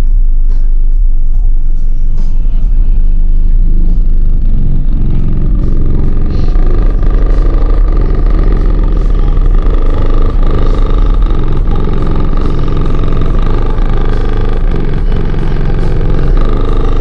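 Car audio system's 12-inch subwoofers playing very loud, deep bass. A steady higher tone joins about six seconds in.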